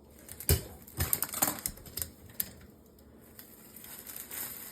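A sharp knock, then a quick run of clicks and rattles and one more knock: hard parts of a foundry furnace being handled during unboxing.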